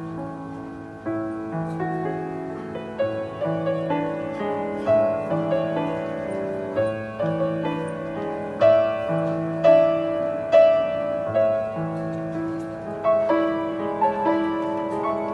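Estonia grand piano played solo: a melody over a repeating pattern of bass notes, with the playing growing louder in the middle.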